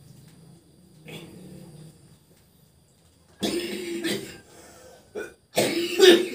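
A person coughing in harsh fits: a first burst about three and a half seconds in, a short cough near five seconds and a louder burst just after. The cough belongs to a patient with a persistent dry cough and shortness of breath.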